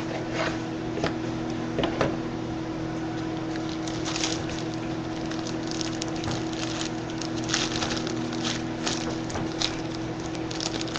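Microwave oven running with a steady hum. Intermittent crinkling and scraping sounds, thickest in the middle, come from a plastic bag being handled.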